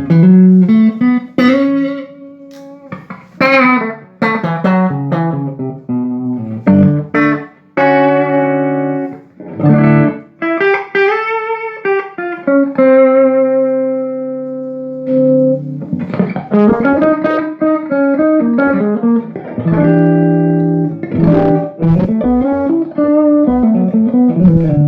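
Electric guitar played through a Fender '65 Deluxe Reverb Reissue tube amp, a mostly clean tone of picked single notes and chords with several string bends and a long held note near the middle. The amp is being tested after fresh power tubes and a bias set.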